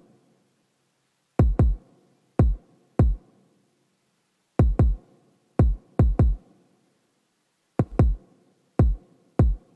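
Soloed kick drum track from a mix: about thirteen deep kick hits in an uneven, syncopated pattern, several in quick pairs, each a short click dropping into a low boom.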